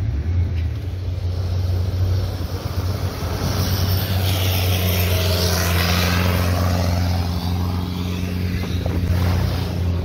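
A motorboat's engine runs with a steady low hum while water rushes along the hull. In the middle, a passing longtail boat and its wake swell up and fade away.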